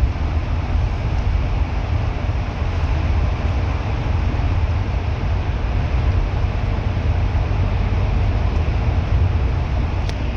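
Bus engine and road noise heard from inside the moving bus: a steady, deep rumble with an even hiss of tyre and wind noise over it.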